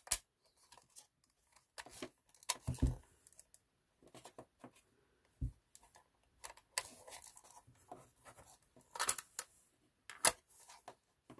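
Sony WM-FX290 Walkman cassette player being handled: a scatter of small plastic clicks, snaps and knocks as the battery compartment is closed, the headphone plug is fitted and the cassette door is opened on a loaded tape. The sharpest click comes about ten seconds in.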